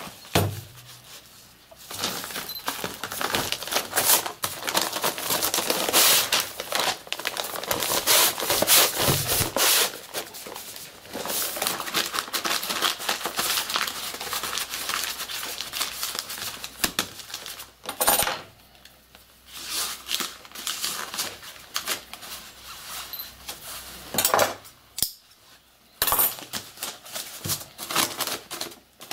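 Stiff brown kraft paper rustling and crackling as it is smoothed and rolled by hand into a tube, with many sharp crackles and taps. It is busiest through the first two-thirds, with brief quiet gaps later on.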